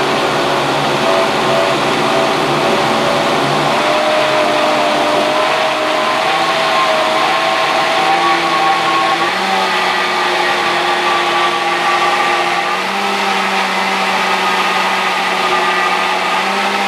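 Semak VitaCrush Mini power blender running loud and steady, churning large chunks of raw pumpkin into a thick purée. Its motor pitch steps up three times, at about 5, 9 and 13 seconds in, as the speed is turned up.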